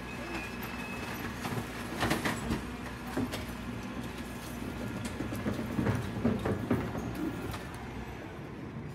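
Rear-loading garbage truck's engine running steadily while its hydraulic bin lifter tips a wheelie bin into the hopper and lowers it again. Clunks and rattles from the bin and tipper come about two seconds in and again around six seconds in.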